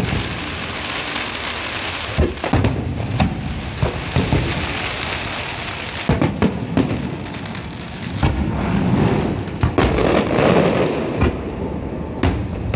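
Fireworks finale: aerial shells bursting with sharp booms in clusters every few seconds, over a continuous dense crackle and hiss from many effects at once.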